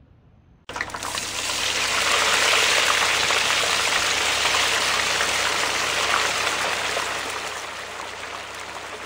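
Running water, a steady rushing trickle that starts abruptly about a second in and eases off a little toward the end.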